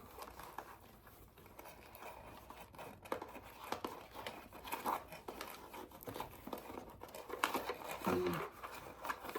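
Toy packaging rustling and crinkling as it is handled, with scattered small clicks while the ties holding the figures are worked loose.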